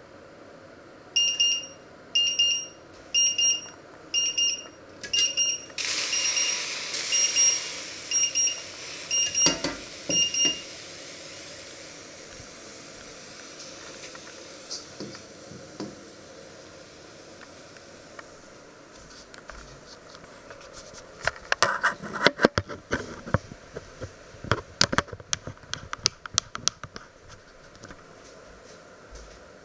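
Electronic kitchen timer beeping, probably the cooktop's own timer: short high beeps about once a second, quickening into faster pairs and stopping about ten seconds in, with a hiss under the later beeps. Later comes a run of sharp clicks and knocks.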